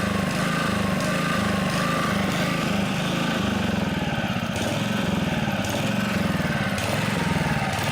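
Honda HR215 lawnmower's single-cylinder engine running and surging, its speed rising and falling over and over in a steady rhythm. It is the sign of a fuel delivery problem, which the owner puts down to obstructions in the carburetor, possibly moisture.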